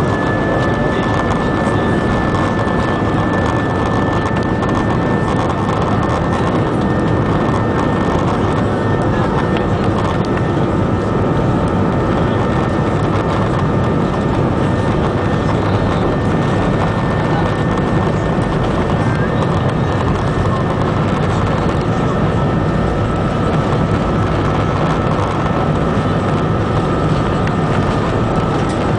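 Cabin noise of an Airbus A320 climbing after take-off, heard from a window seat over the wing: a steady roar of the jet engines and the air rushing past. Two faint steady whines run through it, and the higher one fades about two-thirds of the way through.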